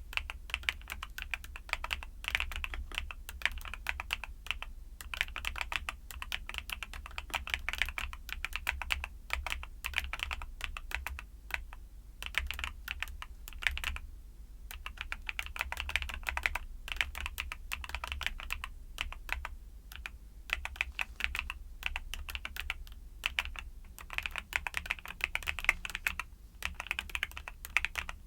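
Mechanical keyboard with YUNZII Cocoa Cream switches being typed on rapidly, dense runs of key clicks broken by brief pauses, over a faint steady low hum.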